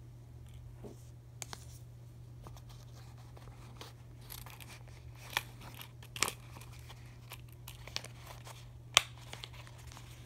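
Handling noise from a folding pocket knife and its leather sheath as the knife is worked into the sheath: scattered light clicks and rustles, with the sharpest click about nine seconds in, over a steady low hum.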